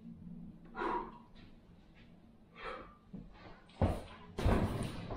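A man breathing hard between dumbbell curls, with a few soft breaths. About four seconds in comes a sharp thud as the rubber hex dumbbells are set down on the wooden floor, followed by a loud, rough exhale.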